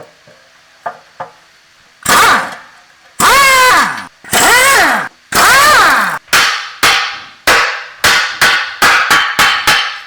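Hand tool working metal in a workshop: a few long harsh scraping strokes, some with a squeal that slides in pitch, then a quick run of shorter strokes at about two to three a second.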